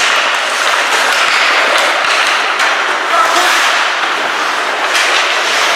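Loud, steady din of an ice hockey rink, with scattered sharp cracks of sticks and puck and a few brief shouts.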